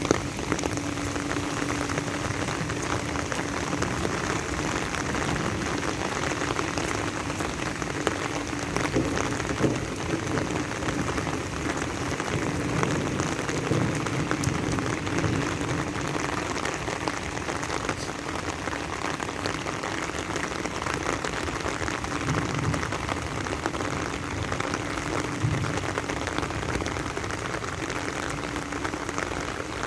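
Steady rain falling, an even continuous hiss of drops with no let-up, and a faint steady low hum underneath for the first ten seconds or so.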